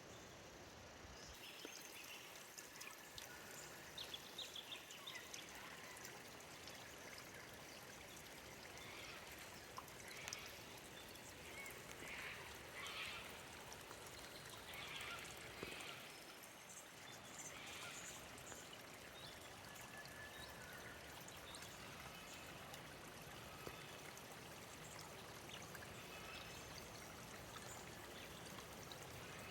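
Creek water flowing and trickling over its bed, faint and steady.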